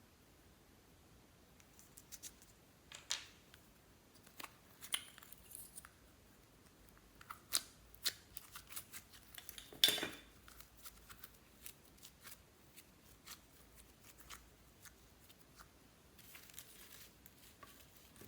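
Glossy slime being worked by hand, giving irregular sticky clicks and small crackles, with the loudest pop about ten seconds in.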